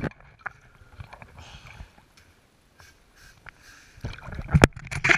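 Water sloshing and gurgling around an underwater camera, with a cluster of sharp knocks about four seconds in.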